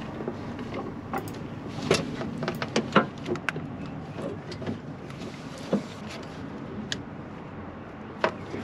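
Hands working silicone coolant hoses and their clips into place in a car engine bay: scattered, irregular clicks and knocks over soft rustling handling noise.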